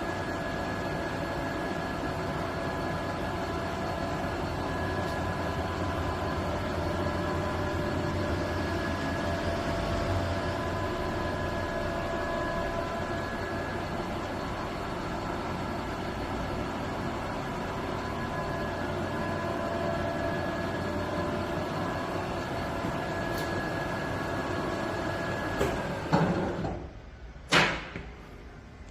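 Hwacheon 580 x 2000 engine lathe running, a steady hum with a constant gear whine. It shuts down near the end with a couple of sharp clunks.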